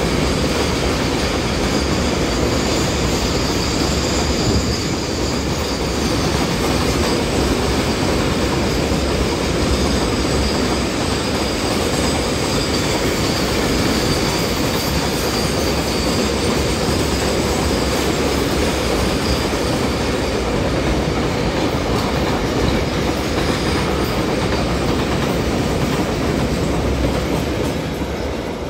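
Container freight train passing close by at speed: steady loud rumble and clatter of the wagons' wheels on the rails, with a thin high whine over it for most of the time. The noise eases slightly near the end as the last wagon goes by.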